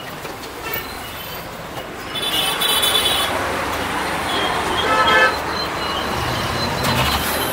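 Street traffic noise with a short vehicle horn toot about five seconds in, after a higher pitched beep around two to three seconds in.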